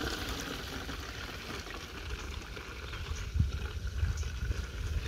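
Rice-washing water poured from a bowl through a plastic funnel into a plastic drinking-water bottle: a steady splashing pour, with some of it running over onto the ground. A few low thumps come in the second half.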